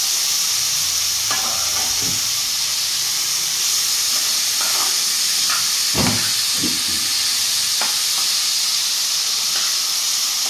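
Sliced vegetables and onions frying in a stainless steel pan with a steady sizzling hiss, while a steel slotted spoon stirs them, scraping and knocking against the pan several times; the loudest knock comes about six seconds in.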